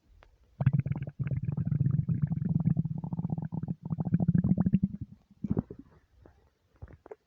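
Deep, long rumbling of an empty stomach: one continuous rumble of rapid small pops lasting about four and a half seconds, then a few short gurgles near the end.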